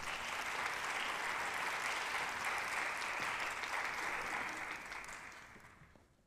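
Audience applauding, steady at first, then dying away about five seconds in and gone near the end.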